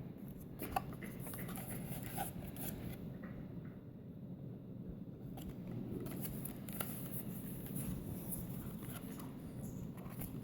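Pages and flaps of a lift-the-flap picture book being turned and handled: faint paper rustling with a few soft clicks.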